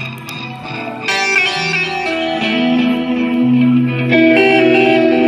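Electric guitar played live through a stage amplifier: a melodic line of held, ringing notes, getting louder about a second in.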